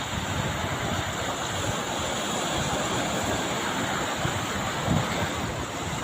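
Sea waves, a steady rush of surf, with wind buffeting the microphone in a low gust about five seconds in.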